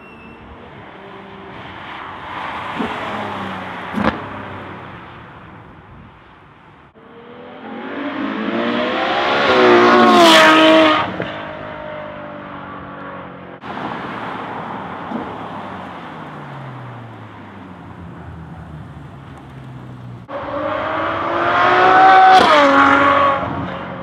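Ferrari 812 Superfast's 6.5-litre V12 driving past several times, first on its stock exhaust and then with Fabspeed sport catalytic converters and an X-pipe. The engine note climbs as the car accelerates toward the microphone and drops as it goes by, loudest about ten seconds in and again near the end.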